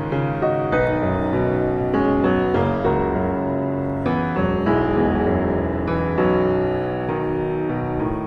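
Background piano music, with chords and notes struck in a steady, unhurried rhythm.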